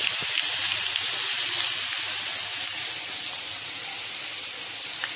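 Cubes of raw papaya, potato and elephant foot yam sizzling steadily as they fry in hot mustard oil in a wok, the hiss easing slightly toward the end. A couple of light clicks near the end.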